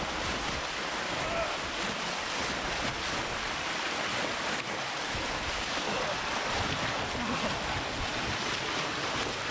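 Waterfall water rushing, a steady, even noise.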